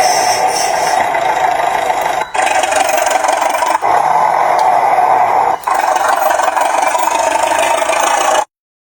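Toy RC excavator's motors and gears running steadily with a rattle, broken by three brief gaps and cutting off suddenly near the end.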